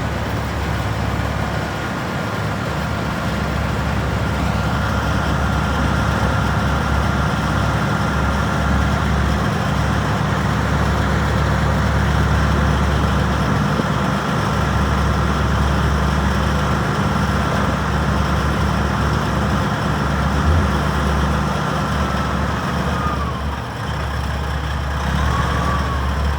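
Heavy truck's diesel engine idling steadily, a continuous low rumble. A thin high whine is held above it and slides down near the end.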